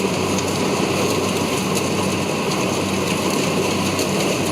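Kubota DC-70 rice combine harvester running steadily under a loud drone: a constant engine hum with a dense mechanical rushing noise over it.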